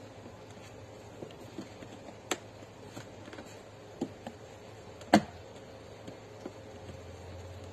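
Plastic trim-removal tool prying at the plastic door-handle surround of a Seat Leon door panel: scattered light clicks and taps, the loudest a sharp click about five seconds in.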